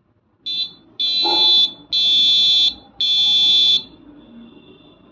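Electronic buzzer beeping Morse code for an Arduino decoder: one short beep, then three long beeps, the dot-dash-dash-dash of the letter J.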